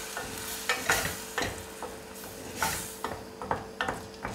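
Wooden spoon stirring a cream and cèpe mushroom sauce in a stainless steel saucepan, knocking irregularly against the pan two or three times a second, over the hiss of the cream reducing on the heat.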